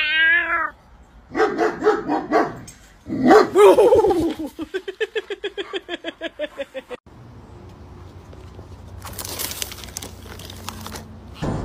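Dogs barking and yelping, then a long, quickly pulsing dog vocalization that slowly falls in pitch and stops abruptly, from a German Shepherd.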